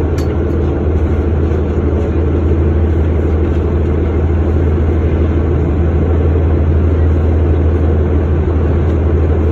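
2009 Orion VII Next Generation hybrid-electric bus, with a Cummins ISB 6.7 diesel and BAE HybriDrive, running steadily with a deep, even drone.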